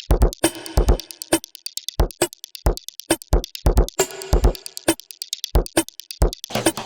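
Electronic drum-machine beat built from chopped samples of a single audio clip: deep kick hits, rapid hi-hat ticks and short percussive stabs in a repeating pattern. A fuller, denser layer comes in near the end.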